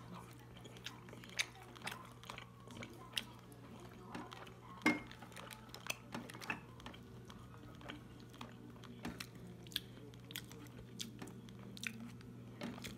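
Eating at a meal: chewing, with frequent short clicks of chopsticks against plates and bowls, the loudest about five seconds in. A steady low hum runs underneath.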